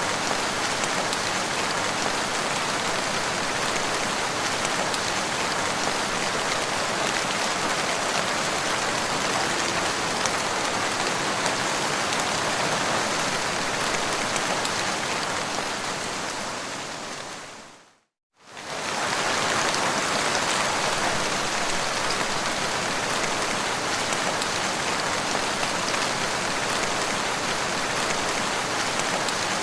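Steady rain falling, an even hiss of drops hitting the ground. About two thirds of the way through it fades out to a moment of complete silence, then comes straight back at full level, as at the seam of a looped recording.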